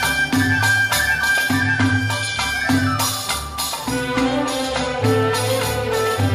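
Instrumental break of an Arabic song, with no singing: an orchestral band plays over a steady percussion beat and pulsing bass, and a held melody line steps down partway through.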